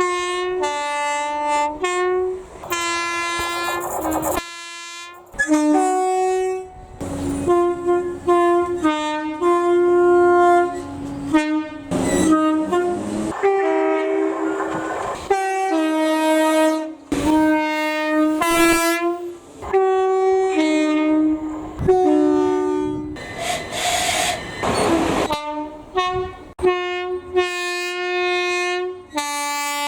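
British train horn sounded over and over as a tune: a quick run of short and longer blasts switching between a high and a low tone. There are two spells of rushing noise, about 12 and 24 seconds in.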